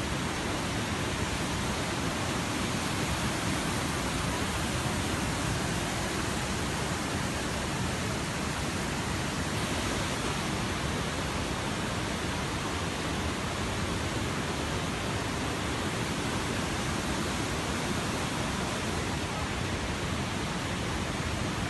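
Muddy floodwater rushing past in a fast torrent, a steady, even rush of water with no breaks.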